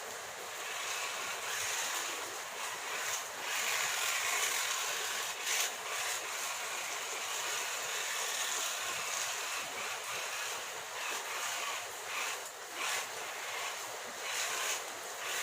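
Tiny 1:43-scale RC car running, its small electric motor giving a high, hissy whine that surges and dips irregularly as it is driven.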